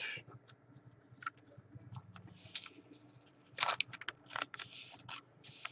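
A trading card being handled and slid into a clear plastic sleeve: faint rustles of plastic and small clicks, busiest in the second half.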